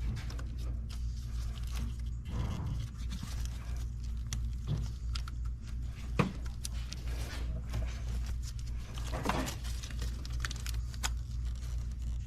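Hands working the plastic locking connectors off ignition coils, with scattered short clicks and brief scraping and rustling over a steady low hum.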